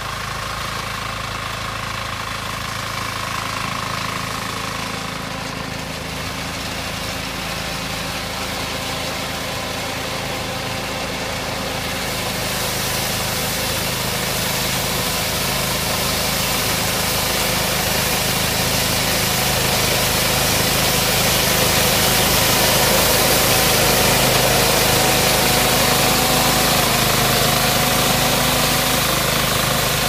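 Diesel engine of a 4HYM-1 walk-behind crawler mini combine harvester running steadily while it cuts rice. It grows louder, with more hiss, from about twelve seconds in as the machine comes closer.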